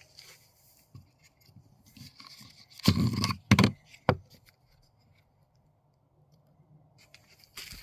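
Handling noises: a loud scrape about three seconds in, a shorter one right after it, then a sharp click, with faint ticks and another short scrape near the end.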